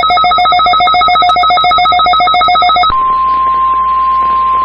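Weather radio alert: a fast, loud warble of two alternating tones for about three seconds, then the steady 1050 Hz NOAA Weather Radio warning alarm tone, here sent as the weekly required test.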